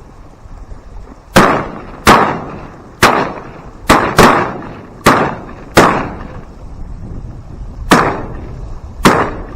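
Several shotguns firing at ducks in a volley: nine loud shots over about eight seconds, some only a fraction of a second apart as different guns fire, each dying away quickly.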